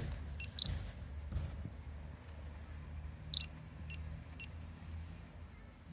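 Pocket gamma-radiation pagers (D-tect MiniRad-D and Polimaster PM1703GNA) giving about five short, high-pitched beeps, two of them louder, over a low steady hum. The beeps are the detectors signalling raised gamma radiation from the granite they rest on.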